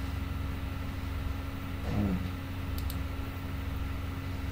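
Steady low electrical hum from the recording setup, with a brief low murmur about two seconds in and two quick faint clicks just after, likely mouse clicks.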